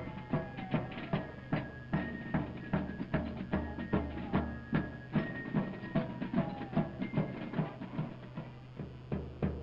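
Military march music with a steady drum beat at about two and a half beats a second, with held higher notes over it and a low steady hum underneath.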